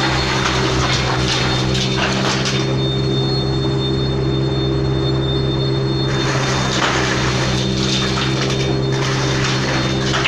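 Wood crusher machine running with a steady motor hum, and a noisy crackling grind as wood is crushed during the first couple of seconds and again from about six seconds in; between those stretches only the hum runs.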